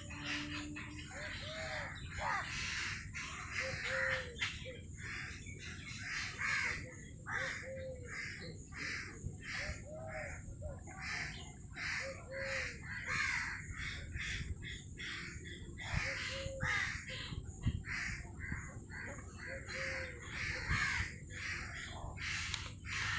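Crows cawing over and over, short harsh calls coming about once a second, several birds overlapping.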